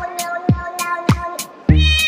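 Upbeat electronic music with a steady kick drum about every half second and cat meows over it; the music drops out briefly and a heavy deep bass comes in near the end.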